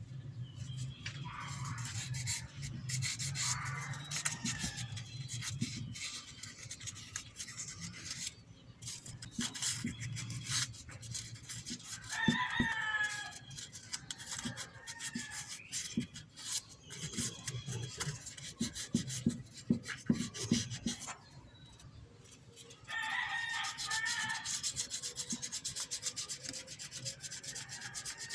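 Sandpaper being rubbed by hand against a metal electrical terminal in quick repeated scratching strokes, cleaning corrosion off the contact. A rooster crows about halfway through and again near the end.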